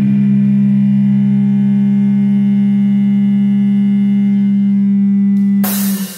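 Rock soundtrack music: one chord held and ringing steadily, then cut off about five and a half seconds in by a sudden burst of hiss-like noise.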